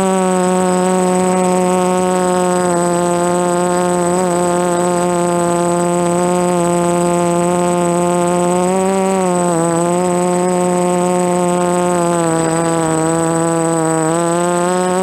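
DJI F330 quadcopter's brushless motors and propellers buzzing in flight, the pitch dipping and wavering with throttle changes about nine seconds in and again near the end. A steady high whine runs above it.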